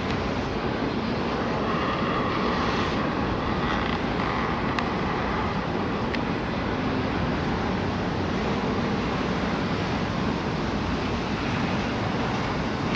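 Intermodal freight train's container-laden well cars rolling slowly along the rails: a steady noise of wheels on track, with a couple of faint sharp clicks around the middle.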